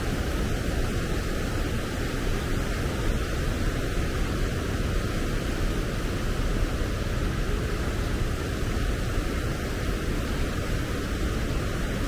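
Steady rush of a waterfall: an even, unbroken hiss and rumble of falling, cascading river water.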